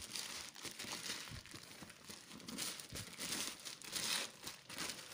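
Thin black plastic mailer bag crinkling and rustling as it is pulled off a cardboard shoebox, in irregular crackles that grow louder about four seconds in.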